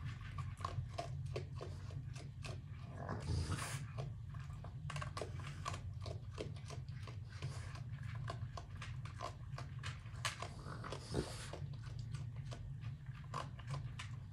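Raccoons eating from a small plastic dish, chewing and crunching with many quick irregular clicks. A steady low hum runs underneath.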